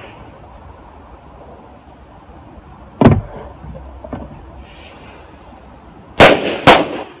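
Powerful firecrackers exploding: a loud bang about three seconds in, a smaller one a second later, then two loud bangs half a second apart near the end, each trailing off briefly.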